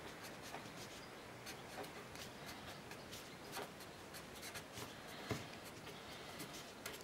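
Felt-tip marker writing on a sheet of paper: faint, short, irregular strokes as letters are drawn.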